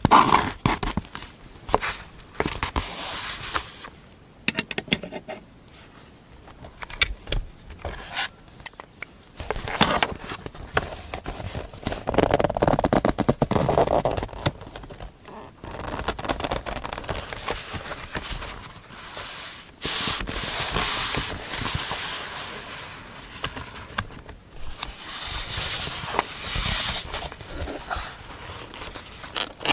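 Close-miked journaling sounds: paper scraping, rubbing and crackling in irregular bursts, with a stretch of fast fine scratching about twelve seconds in.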